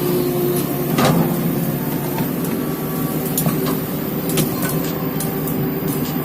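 Komatsu excavator's diesel engine running steadily under load, with a few sharp knocks, the strongest about a second in.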